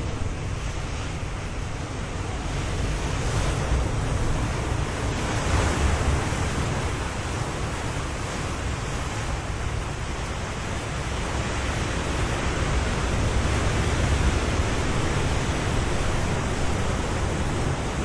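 Ocean surf washing in continuously, a steady hiss over a low rumble that swells louder twice as waves break, about a quarter of the way in and again near the end.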